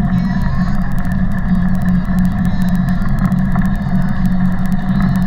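Steady rumble of a Taga cargo bike rolling along a paved path, picked up by a camera mounted on the bike, with fast light rattling clicks throughout.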